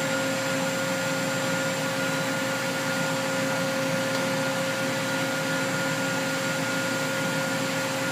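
1995 Cincinnati Milacron Avenger 250MT CNC lathe powered up with its spindle at rest, giving a steady machine hum with several constant tones, high and low.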